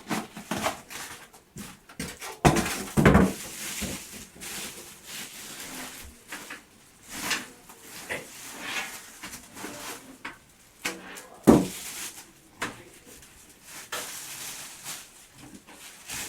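Handling noise of a PC case being unpacked: packaging rustling and scraping, with scattered knocks and a couple of heavier thumps about three seconds in and again near the middle.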